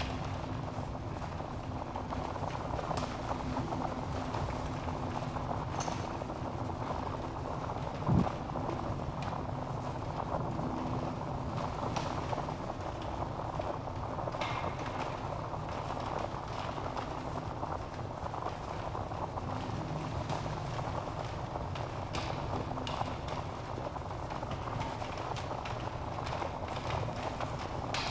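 Log fire burning in a fireplace: a steady low hiss of flames with scattered crackles and pops, one louder pop about eight seconds in.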